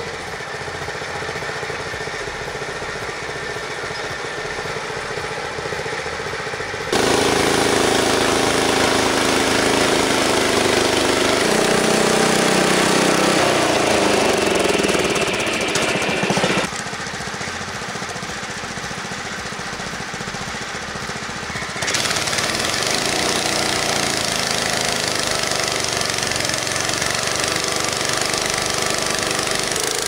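Frontier OS23 portable bandsaw mill running: its engine runs steadily while the band blade cuts through a log. The sound is quieter at first, then changes level suddenly several times.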